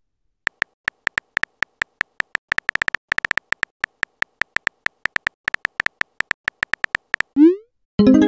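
Quick, irregular clicks of a phone keyboard's simulated key taps as a text message is typed, several a second, with short pauses between bursts. About seven seconds in, a short rising whoosh plays as the message is sent, and another electronic app sound starts right at the end.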